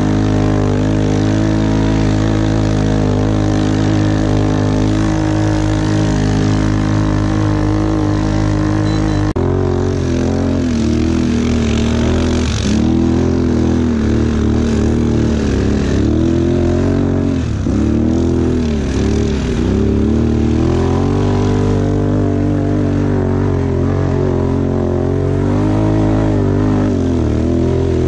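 ATV engine running hard up a snowy slope: steady revs for the first several seconds, then, after an abrupt change, the revs rise and fall over and over as the throttle is worked.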